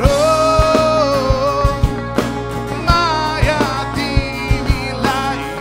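Live rock band: a male lead singer holds one long note from the start to about two seconds in, then sings a gliding phrase, over electric bass, guitar and a steady beat.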